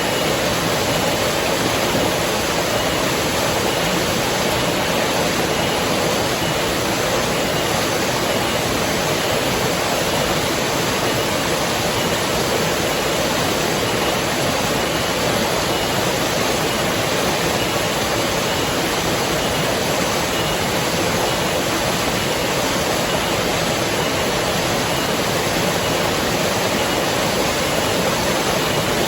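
River water flowing: a steady, unchanging rush of water.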